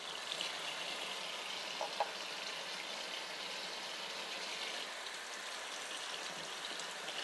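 Kitchen faucet running into a sink: a steady stream of tap water splashing, with a raw chicken breast rinsed under it by hand.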